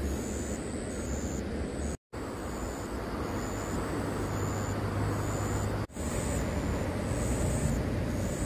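Steady outdoor background noise with a low rumble and short, high-pitched tones repeating every second or so over it. It drops out briefly twice, about two seconds in and again near six seconds.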